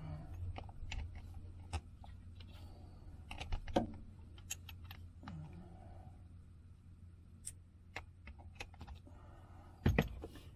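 Scattered light clicks and taps of hand tools and metal parts being handled while working on a car's starter, over a steady low hum, with one louder knock near the end.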